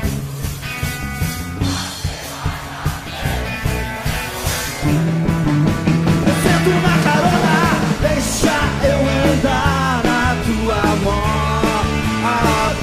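Rock music: a full band with a steady beat and bass. About five seconds in it gets louder, and a bending, wavering lead melody runs over it.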